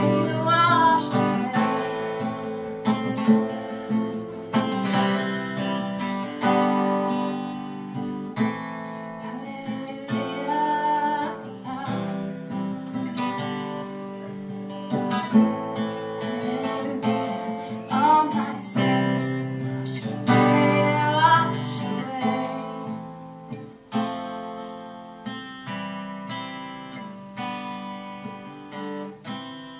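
Acoustic guitar strummed with a woman singing over it at times; the playing dies away over the last few seconds as the song ends.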